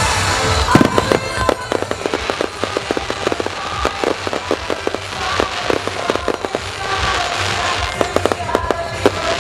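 Fireworks display: a loud bang about a second in, then a long run of rapid crackling pops as crackling stars burst, with music playing underneath.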